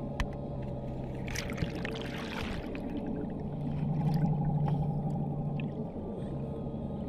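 Whale calls: long, low tones held steady, swelling louder around four seconds in, with a short burst of hissing, bubbly noise about a second and a half in and a few sharp clicks.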